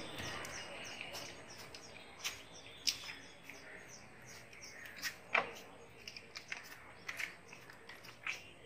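Wet bites, smacks and slurps of ripe watermelon being eaten, in irregular single clicks a second or so apart. Small birds chirp faintly in the background.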